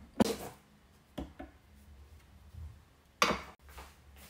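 A few sharp knocks and clinks of glass kitchen bowls and a silicone spatula being handled and set down on a counter, the loudest just after the start and about three seconds in.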